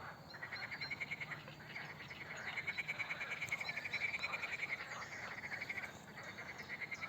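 A chorus of frogs calling: rapid pulsed trills that overlap, coming in runs of one to two seconds.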